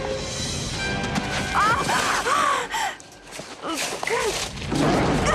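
Action-film soundtrack: tense music mixed with short squealing cries that rise and fall in pitch. The sound drops away briefly about three seconds in.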